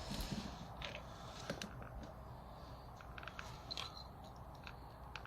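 Faint handling noise: scattered small clicks and light scrapes.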